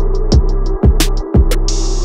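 Background music: an electronic beat with a deep held bass, kick drums about twice a second and quick hi-hat ticks, with a short hiss sweep near the end.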